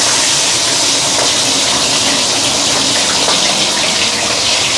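Hot oil sizzling and spattering steadily around a whole Chinese pomfret just lowered into a stainless steel wok for deep frying. The fish went in salted and not patted dry, so the moisture on it makes the oil spatter.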